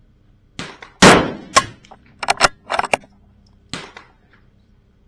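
A single .22 LR shot from a CZ 457 bolt-action rimfire rifle about a second in, followed by a run of short metallic clicks and clacks as the bolt is worked to eject and chamber, and one more clack a moment later.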